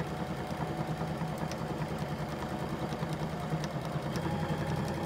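Husqvarna Viking electric sewing machine running steadily at an even speed, stitching a seam.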